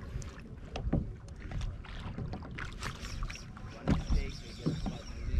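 Sea water sloshing and slapping against a kayak hull on choppy water, with a few louder splashes or knocks about a second in and again near four seconds.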